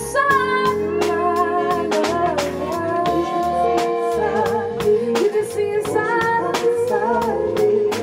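Live band performance: a woman sings a melody into a microphone over electric guitar, keyboard and a drum kit keeping a steady beat on the cymbals.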